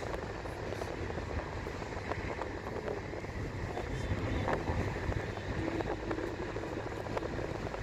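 A car driving along a road: steady engine and road noise with a low rumble and small scattered rattles.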